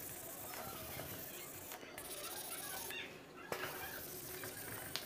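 Whiteboard eraser rubbing marker ink off a whiteboard: faint wiping strokes with short breaks between them.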